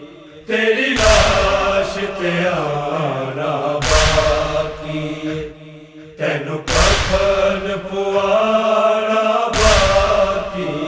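Male chorus chanting a nauha refrain in unison. A deep, reverberant thump lands about every three seconds, the beat of matam (chest-beating) that keeps time for the lament.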